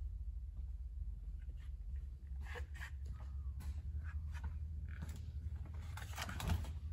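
Steady low hum of a large room, with faint scattered rustles and clicks.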